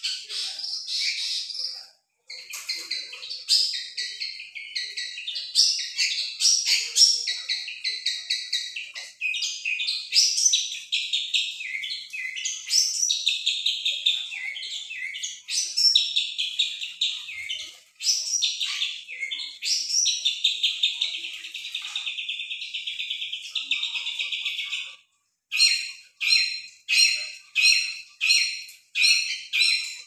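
Caged songbirds singing nonstop in long, rapid runs of high chirps and trills. About 25 seconds in, the song breaks into short repeated phrases, a bit under two a second.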